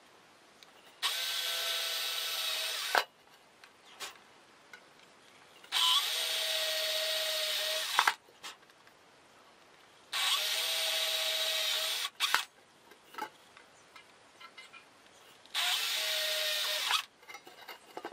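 Electric drill boring holes through a thin metal bowl: four separate runs of about two seconds each, a steady whine as the bit cuts the metal, with short pauses between them.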